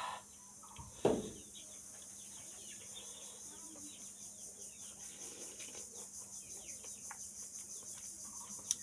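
A man chewing raw green chilli, with soft crunching and mouth sounds, over a steady, evenly pulsing high hiss. A short sharp sound stands out about a second in.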